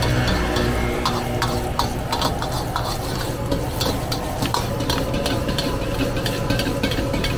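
Metal ladle clanking and scraping against a steel wok in quick, irregular strokes as vegetables and noodles are stir-fried, over a steady sizzle and the rush of the gas wok burner.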